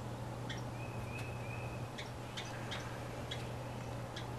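Small bird calls: a scatter of short, sharp chips and a few thin, high whistled notes about a second in, over a steady low hum.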